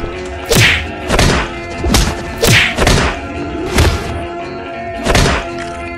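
Fight sound effects: about six punch hits with whooshes at uneven intervals, laid over background music.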